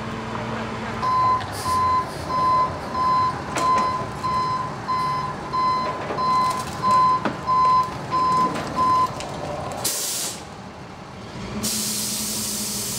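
Flatbed tow truck's back-up alarm beeping about one and a half times a second, over the truck's running engine, then stopping. Afterwards comes a short hiss, and a steadier hiss near the end.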